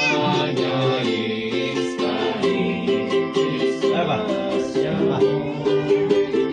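Music led by a strummed plucked-string instrument, like a ukulele, keeping an even rhythm, with some singing.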